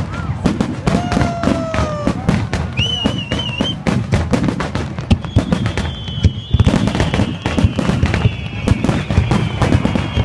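Aerial fireworks bursting and crackling in a dense, rapid stream of cracks and bangs, with several whistles falling in pitch, a warbling whistle about three seconds in, and one long slowly falling whistle from about halfway on.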